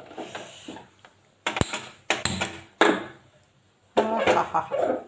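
Kitchen handling sounds at a gas stove: a sharp click about one and a half seconds in, typical of a hand-held spark gas lighter, then scraping and clunks as an earthenware curry pot is set on the metal burner grate.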